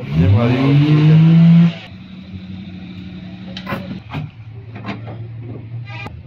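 A car engine revs up quickly, holds high for about a second, then drops back to a steady idle. A few light clicks and knocks follow.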